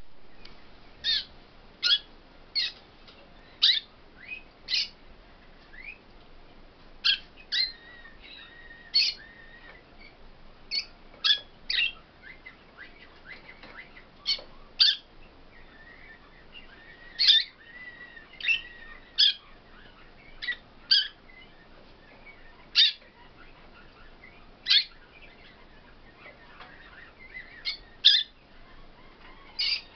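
Caged songbirds calling: short, sharp high chirps at irregular intervals, about one a second, with a few softer warbling phrases between them.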